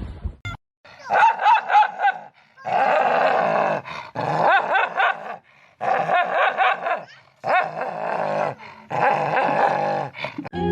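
A dog barking and vocalizing in about six bouts of a second or so each, separated by short pauses.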